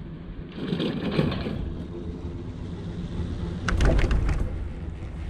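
Wind rumbling on the microphone during a chairlift ride, with two bursts of rattling and clicking, one about half a second in and a louder one about four seconds in.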